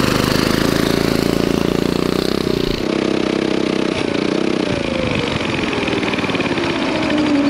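Turbocharged, fuel-injected Predator 420cc single-cylinder go-kart engine running hard for about three seconds, then thinning out, its pitch falling steadily near the end as the engine dies. The driver suspects fuel sloshed to one side of the tank and starved it.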